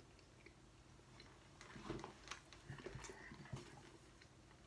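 Faint chewing of a mouthful of cheese sandwich: soft wet mouth clicks and smacks, bunched in the middle after a quiet start.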